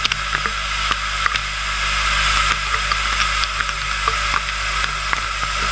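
JTEKT FH500J horizontal machining center milling a 38 mm-deep slot in 4140 steel, the spindle at 3,000 rpm with a 330 mm/min feed. The cut gives a steady hiss with a high steady tone, broken by scattered sharp ticks as chips fly.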